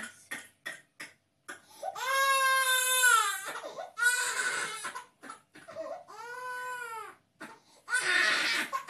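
Baby crying hard while being massaged: a few short catching breaths, then four long wailing cries, each rising and falling in pitch, with short pauses between them.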